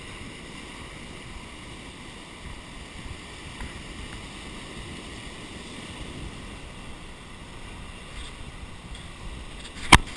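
Waves washing up a beach and wind, a steady noise as picked up by a GoPro Hero 2 microphone. About ten seconds in, a single sharp knock as the camera is handled.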